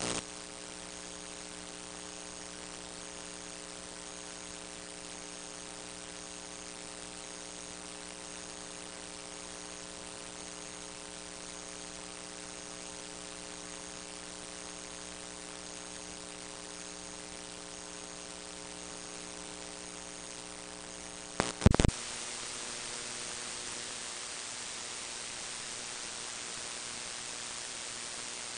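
Steady hiss and electrical hum from a blank stretch of recording after the programme has ended. A sharp double click about three-quarters of the way through, after which the hum drops away and a brighter, even hiss remains.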